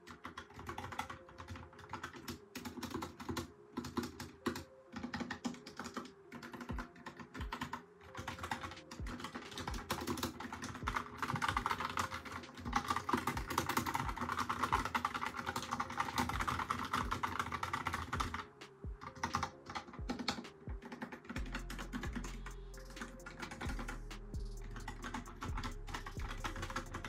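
Typing on a Logitech POP Keys wireless mechanical keyboard with brown switches: a continuous, irregular run of key clacks, fastest and loudest in the middle stretch.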